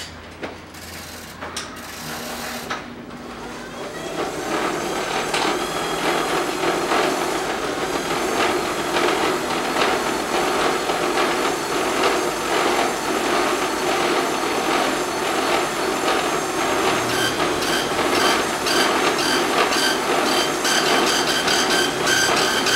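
Epson dot-matrix printer printing: a dense, rasping rattle of the print head that builds in about four seconds in and runs on in quick repeated strokes, after a few separate clicks at the start.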